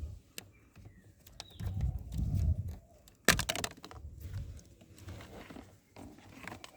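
Handling noises: a few low bumps and scrapes, with one sharp knock a little over three seconds in, and small ticks around it.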